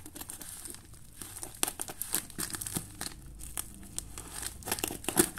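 Plastic parcel wrapping crinkling as it is handled and cut open with scissors: a run of irregular crackles and clicks, loudest just before the end.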